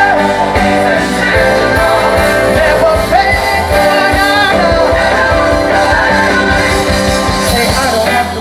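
Live gospel band playing with drums, and voices singing sustained, wavering lines between the lyrics of the song.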